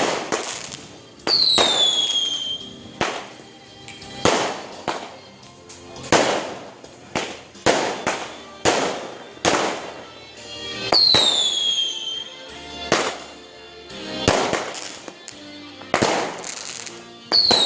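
Fireworks going off in a long series of bangs, about one a second, each fading quickly. Three times a high whistle falls in pitch just before a bang.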